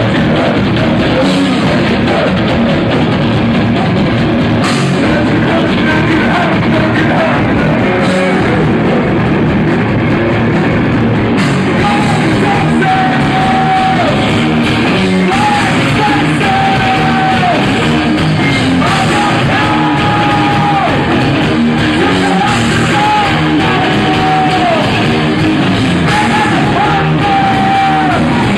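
Live rock band playing loud, with drums and a singer yelling. From about twelve seconds in, the voice holds a string of long notes that drop in pitch at their ends. It is an audience recording with a flat, heavily compressed sound.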